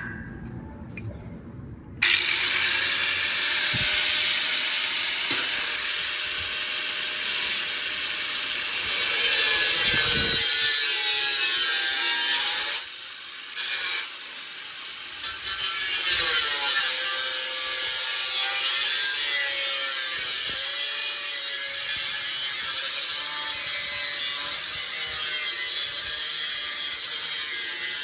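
A power cutting tool running continuously as it cuts through sheet steel from a replacement body panel, starting about two seconds in, with two brief pauses about halfway through.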